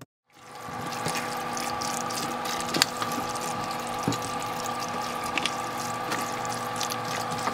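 A wooden spoon stirring macaroni and cheese in a foil pan, wet and sloppy, with a few sharp clicks, over a steady hum.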